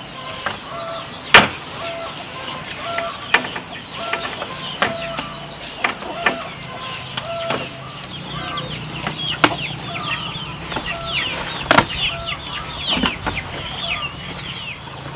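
Chickens clucking in a short repeated call, with quick chirps thickening in the second half, over sharp knocks every second or two; the loudest knocks come about a second in and near twelve seconds in.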